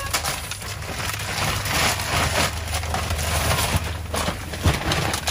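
Plastic trash bags and cardboard snack boxes being rummaged through and moved, a dense rustling and crinkling with small knocks, over a steady low hum.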